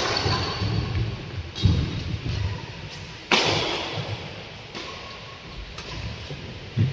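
Badminton rally: rackets striking the shuttlecock about five times, sharp cracks a second or two apart, the hardest hit about three seconds in and echoing in the hall.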